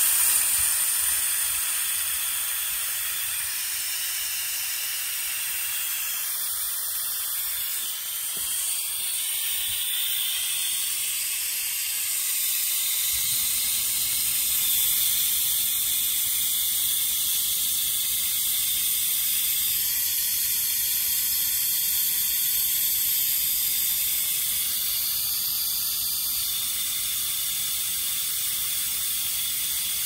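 Compressed air hissing steadily through the venturi of an EASYBERG pneumatic oil extractor as it pulls vacuum to draw engine oil into the tank. A lower steady hum joins about 13 seconds in.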